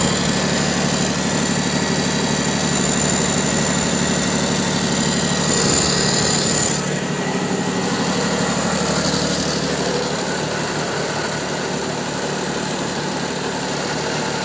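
Kirloskar XL90 diesel engine driving a 125 kVA alternator, running steadily at constant speed, heard close up; the low rumble eases slightly about seven seconds in.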